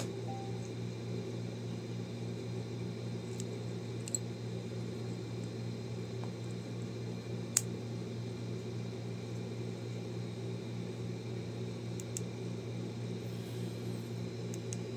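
Steady mechanical hum, with a few light clicks from handling a CR2032 coin-cell battery and the plastic casing of a 2017 Honda Civic key fob. The sharpest click comes about seven and a half seconds in, as the battery goes into its holder.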